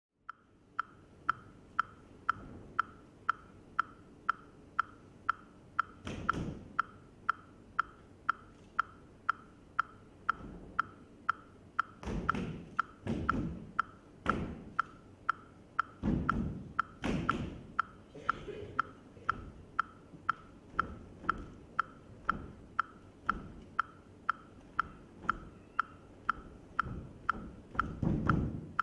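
A steady, evenly spaced wooden click, about two a second, keeping a beat. Irregular dull thuds and swishes from the dancers' bare feet on the stage floor come in clusters about six seconds in, between twelve and eighteen seconds, and near the end.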